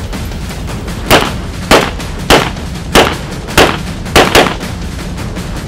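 Hunt Group M13 MAT gas-operated semi-automatic shotgun fired in a rapid string of about seven shots, roughly two a second, the last two almost back to back.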